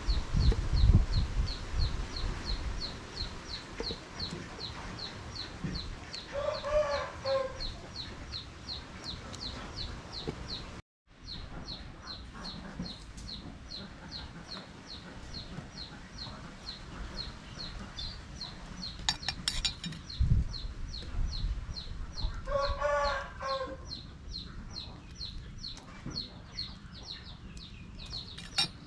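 A rooster crows twice, once about a quarter of the way in and again near the end. Behind it a high, thin chirp repeats steadily about three times a second, with a few low knocks.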